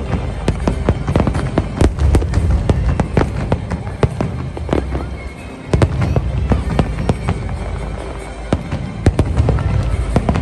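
Fireworks display: rapid, dense cracks and bangs over a continuous low rumble of booms, with a brief lull about five seconds in before the volleys pick up again.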